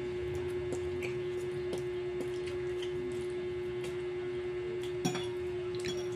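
A steady one-pitch hum with faint scattered clicks, and sharper clicks about five seconds in and near the end: forks knocking on plates during a noodle meal.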